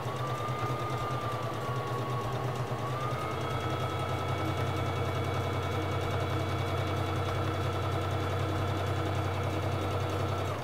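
Singer Fashion Mate 3333 sewing machine running, sewing a multi-step zigzag stitch. The motor whine climbs as it starts, rises a little about three seconds in, holds steady, and stops suddenly near the end.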